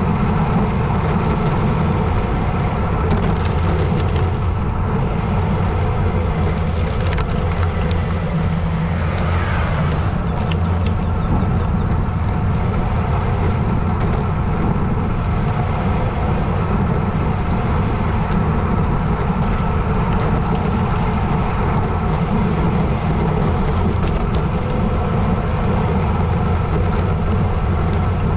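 Steady wind rush over the microphone of a bicycle descending at speed.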